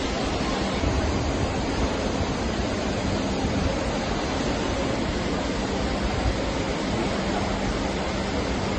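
Steady, even rushing noise of running power-plant machinery, with a faint low hum underneath.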